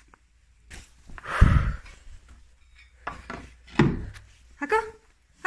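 Handling noise: rubbing and dull knocks against wooden boards, with two louder thuds about a second and a half in and just before four seconds, then a couple of short pitched, voice-like sounds near the end.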